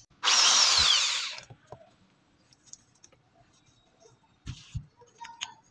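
Electric hand drill with a twist bit run free for about a second, its pitch falling as it winds down. Two soft knocks follow near the end.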